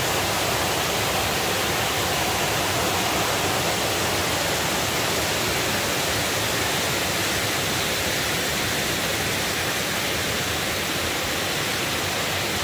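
Water pouring over a curved stone dam spillway and crashing into the pool below: a steady, loud rush of falling water.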